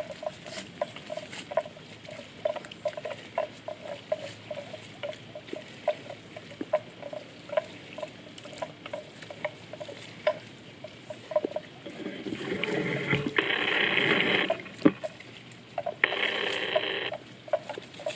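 Short clucking calls from an animal, repeated about two or three times a second, with two louder hissing buzzes, the first about twelve seconds in and lasting a couple of seconds, the second about sixteen seconds in and lasting about a second.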